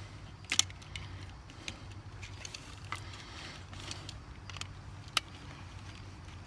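Scattered small clicks and taps of a screwdriver and wire being worked on a GFCI receptacle's terminals while the ground wire is connected, two of them sharper, about half a second in and near five seconds. A steady low hum lies underneath.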